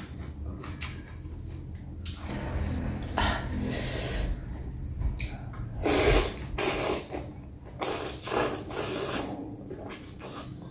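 Rice noodles (bún) being slurped from a bowl of broth and chewed close to the microphone: a run of irregular wet slurps with chewing in between.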